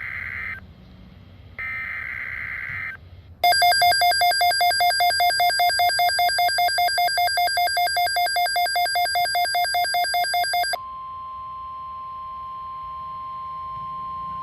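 NOAA Weather Radio Emergency Alert System signalling: the end of one buzzy SAME data burst and then a second, about a second and a half long. A loud electronic alarm beeps rapidly, about three pulses a second, for about seven seconds, then cuts to the steady single-pitch weather-radio alert tone, which holds until the end.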